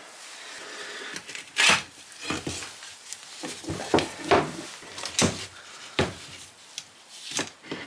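Handling noise as a freshly cast rubber mould is pried and pulled loose from its glued-down base: irregular knocks, clicks and scrapes. The sharpest knock comes about a second and a half in, with others around five, six and seven seconds.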